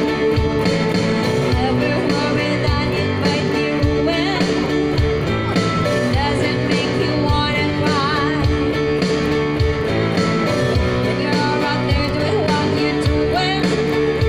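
Live pop-rock song: a woman singing with vibrato into a microphone over electric guitar and an accompaniment with a steady beat.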